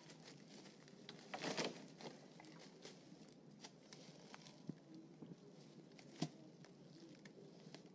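Faint rustling of dry bamboo leaves and sticks as a barefoot person steps about and handles wood, with a louder rustle about a second and a half in and a few sharp cracks, the loudest about six seconds in.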